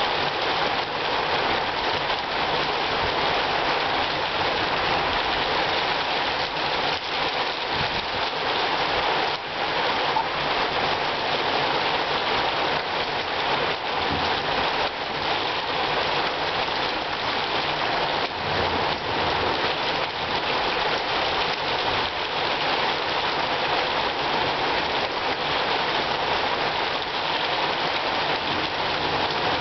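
Rain pouring steadily in a thunderstorm: a dense, even patter of drops on surfaces.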